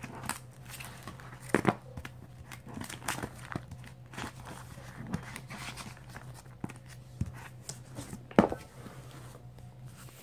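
Plastic binder sleeve pages crinkling and rustling as they are turned and handled, with scattered small clicks and two sharper knocks, one at about two seconds in and one near eight seconds in.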